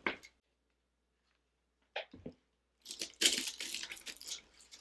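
Faux ruscus stems rustling and the dry grapevine wreath crackling as stems are handled and pressed into it. A few short rustles about two seconds in, then a louder burst of rustling and crackling about three seconds in.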